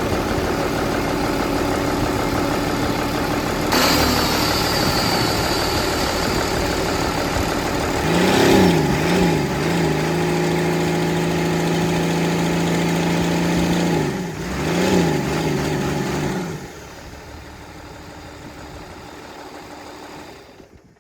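Diesel engine of a Doosan excavator running, its pitch swinging up and down in quick rises and falls twice, with a steady run in between. It drops to a much quieter level about 16 seconds in.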